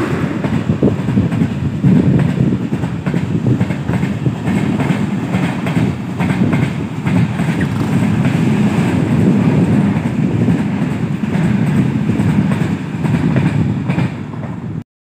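Vande Bharat Express train running past on the rails: a steady rumble with a constant wheel clatter. It eases slightly, then cuts off abruptly just before the end.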